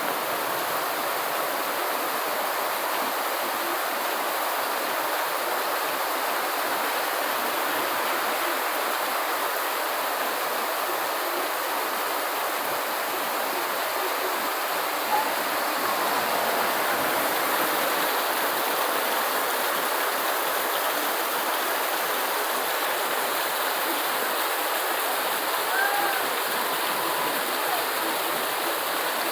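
Steady, heavy rain: a dense, even hiss of falling water with no breaks.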